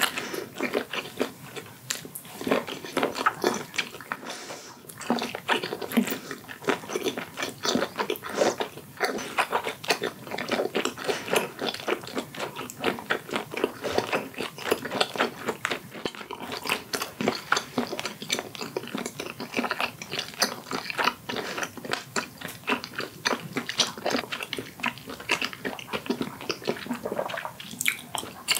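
Close-miked chewing of a mouthful of steamed seafood: a dense, continuous run of quick mouth clicks and smacks, several a second.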